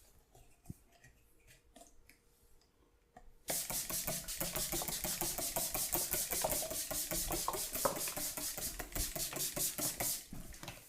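A barber's massaging hands working on a client's body with fast, even, rhythmic strokes. They start abruptly about three and a half seconds in and stop shortly before the end. Before they start there are only faint soft touches.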